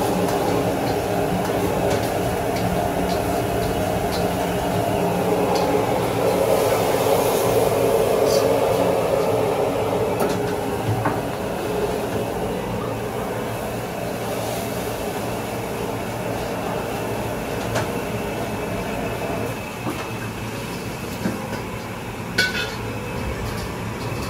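Gas wok burner running at high flame with a steady rush, while a metal ladle clinks and scrapes against the wok as food is stir-fried; a few sharp metal clinks come close together near the end.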